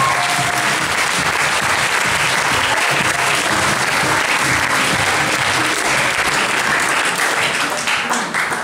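Loud applause from a crowd of clapping hands, dense and steady, thinning out and falling away shortly before the end.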